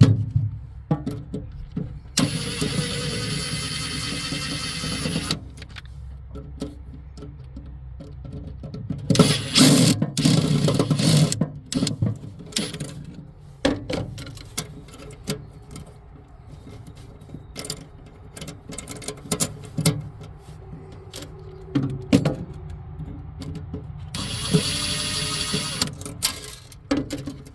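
Small electric screwdriver or drill motor whirring in two runs of about three seconds each, backing out the screws that hold the fryer's brackets. In between come clicks and knocks of tools and metal parts being handled, with a louder rattling clatter about ten seconds in.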